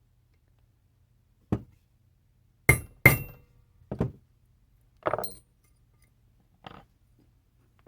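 Center punch being struck into a steel knife blade to mark the pivot hole: a series of about six sharp metallic taps and clinks at uneven spacing, the loudest two close together about three seconds in.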